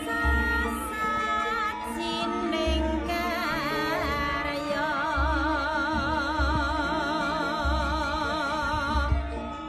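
Javanese gamelan music with a vocalist singing long wavering held notes over deep low drum beats that fall about once a second.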